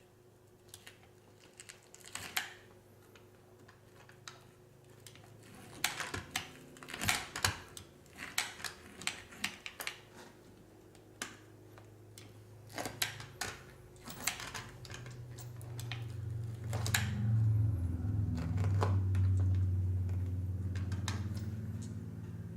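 Sharp clicks and knocks of handling tools and cut rubber. About fourteen seconds in, a blade cutting tool set to low speed starts running with a low steady hum that grows louder as it cuts into a rubber stall mat.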